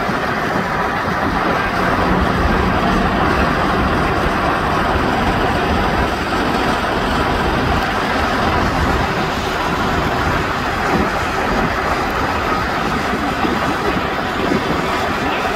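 Steady urban traffic noise: an even rumble of vehicles with no distinct events.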